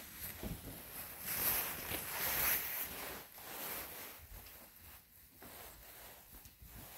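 Rustling, scuffing handling noise as a phone is carried and moved by hand, loudest for a couple of seconds about a second in, then fading to a softer rustle.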